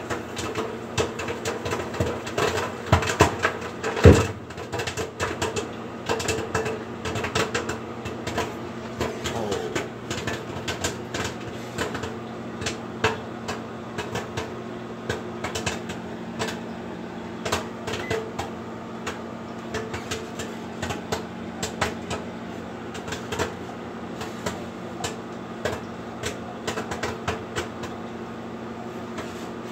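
Microwave popcorn popping in its bag inside a running GE JES2051SN4SS microwave oven, over the oven's steady hum. The pops come thick and fast through the first ten seconds, with one loud pop about four seconds in, then thin out to scattered pops as the popping slows.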